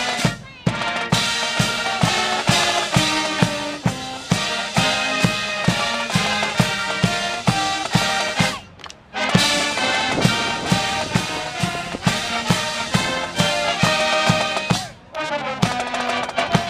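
University marching band playing a college fight song: brass and saxophones over a bass drum beating about two and a half strokes a second. The band cuts off briefly three times, early, about halfway and near the end, between phrases.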